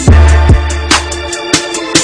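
Hip hop backing track: deep, sustained bass-drum notes under sharp percussion strikes about twice a second.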